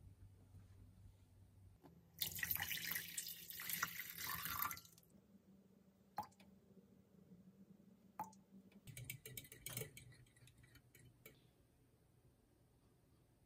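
Water pouring into a stainless-steel saucepan for about two and a half seconds, then a few light metal clinks from a spoon against the pot and a short stretch of quieter kitchen clatter.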